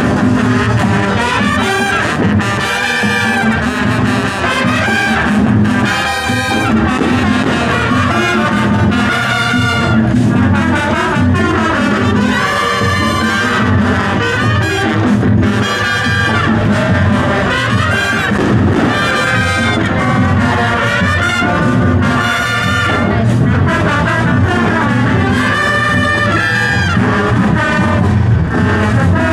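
A marching band playing loudly and without a break, with its brass carrying the tune.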